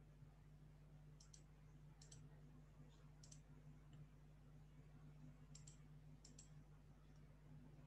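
Faint computer mouse button clicks, about five quick click pairs spread out, over a low steady hum.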